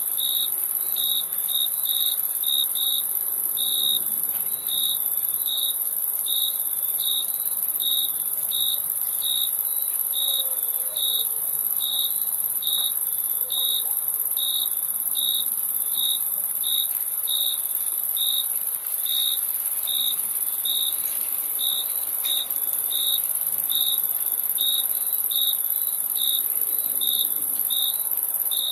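Crickets chirping: one cricket gives short, evenly repeated chirps, about one and a half a second, over a continuous high-pitched insect trill.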